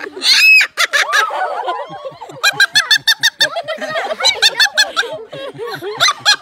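Laughter: long runs of quick 'ha-ha-ha' pulses, with a short high-pitched call about half a second in.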